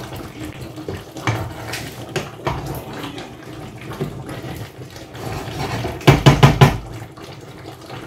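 Wooden spoon stirring thick, wet plantain porridge in a stainless steel pot, with a quick run of five or six loud knocks about six seconds in.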